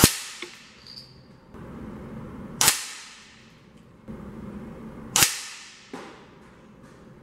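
Three shots from a .177 air rifle about two and a half seconds apart, each a sharp crack with a short decaying tail, and a fainter tap after the first and the last.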